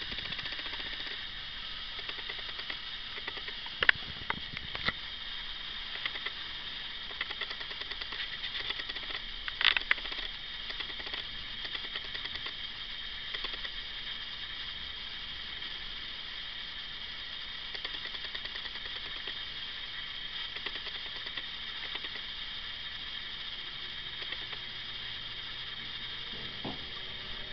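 Steady hiss of a handheld camera's own microphone and electronics, with a few sharp handling clicks and bumps, the loudest about four seconds in and again near ten seconds.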